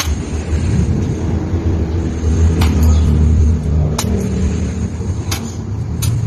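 A steady low rumble, with four sharp knocks of a knife blade striking a trimmed young coconut (buko) as it is chopped open, the first about two and a half seconds in and the last near the end.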